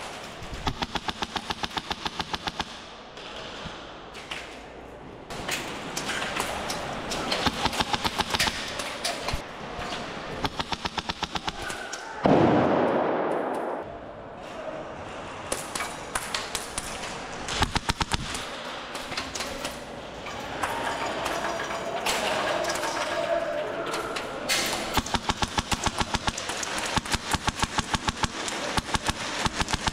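Airsoft guns firing repeated full-auto bursts of rapid, evenly spaced shots. About twelve seconds in comes a single much louder bang that dies away over a second or so.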